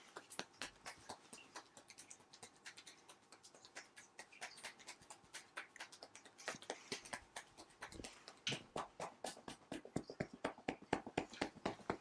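Quick, rhythmic percussive tapping massage: a barber's hands striking a customer's head and shoulders, many taps a second, growing louder from about two-thirds of the way in.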